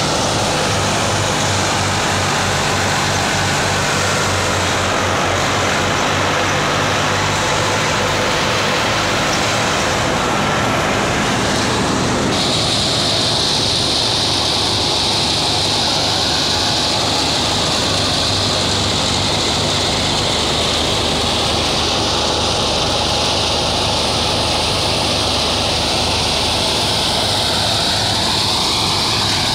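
Tractor-driven wheat thresher running steadily as wheat straw is fed in: the New Holland Ghazi tractor's engine drone under the whirring hiss of the threshing drum and blower. About twelve seconds in, the hiss grows sharper and brighter.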